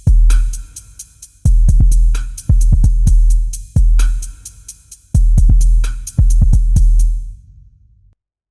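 Electronic drum pattern from the Sound Yeti Method 1 Kontakt library: deep, long-decaying kick booms in a syncopated rhythm under fast, crisp hi-hat-like ticks. The pattern cuts off suddenly about half a second before the end.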